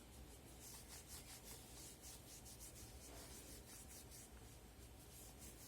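Faint cleaning cloth wiping a smartphone's screen in repeated quick back-and-forth strokes, a soft high rubbing hiss.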